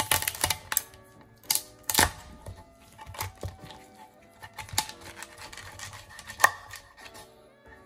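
Chef's knife cracking through a lobster tail's shell and knocking on a wooden cutting board: irregular sharp cracks and clicks, the loudest about two seconds in and again about six and a half seconds in. Background music plays under it.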